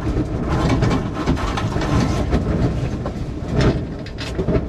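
Sailboat sheet winch clicking in quick irregular bursts as a sheet is hauled in and trimmed after a tack, over a steady rush of wind and water.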